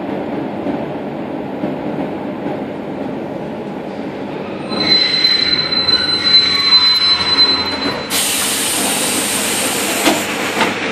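Suburban electric train rumbling slowly into an underground station, then squealing with a steady high whine for about three seconds as it brakes to a stop. About eight seconds in, a sudden loud hiss of air starts as the doors open, ending with a couple of clunks.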